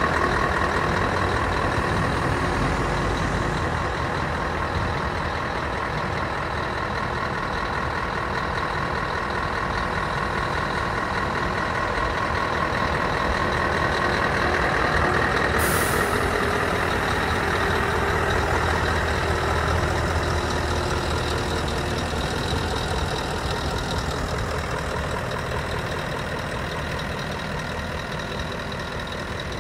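Scania R560's 16-litre V8 diesel idling steadily, with a brief sharp hiss about halfway through.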